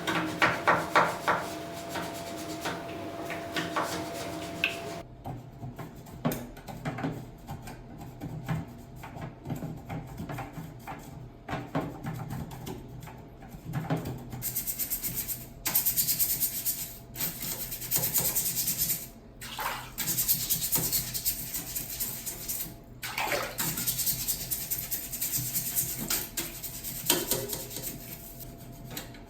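Water running and splashing with scrubbing and plastic clatter as a ceiling air conditioner's filter and grille are washed; the hiss of water comes in long spells in the second half.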